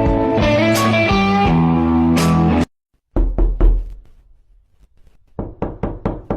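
Music with guitar and plucked strings playing held notes, which cuts off suddenly. After a short gap come four quick plucked notes, then a pause, then a quick run of about five short plucked notes near the end.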